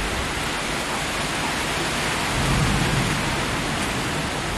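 Monsoon rain falling steadily: a dense, even hiss of downpour, a little louder about halfway through.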